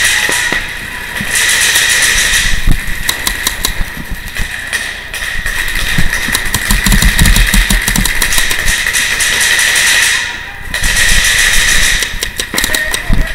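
Paintball markers firing in rapid strings of pops, over a steady hiss that drops out briefly twice.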